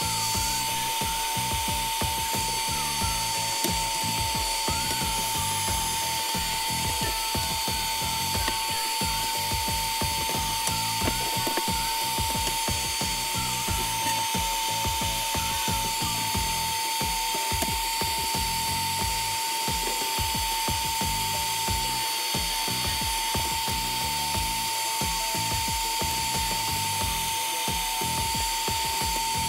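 Heat gun on a stand blowing hot air onto a phone's back glass to soften the adhesive: a steady fan hiss with a constant whine.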